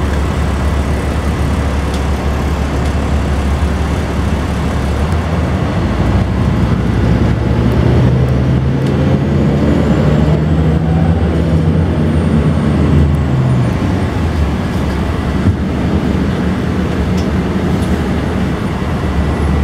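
A 1998 Gillig Phantom transit bus's Cummins M11E diesel engine heard from inside the cabin. It runs with a low rumble, then about six seconds in pulls away: the engine note rises in steps as the Allison automatic shifts, with a faint whine climbing alongside. Near the end it settles back to a steadier rumble.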